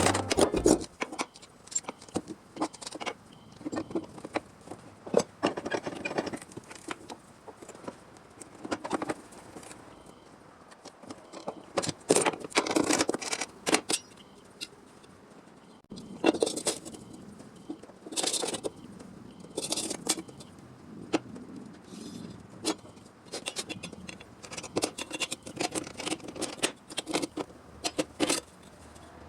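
Hand work on sheet steel: irregular clinks, clicks and scrapes of metal and hand tools, coming in bursts with quieter stretches between, and a quick run of small clicks near the end.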